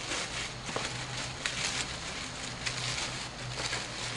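Irregular rustling and crinkling of a bag and cardboard model-kit boxes being rummaged through and shifted by hand.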